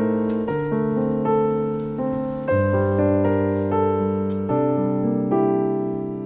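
Background piano music: chords that ring and fade, with a new bass note about every two seconds.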